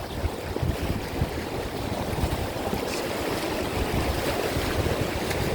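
Rushing river water around a raft, a steady wash, with wind gusting on the microphone.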